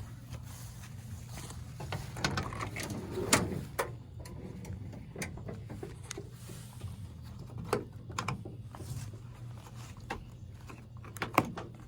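Irregular knocks, clicks and rattles of objects being handled and moved, busiest about two to four seconds in, over a steady low hum.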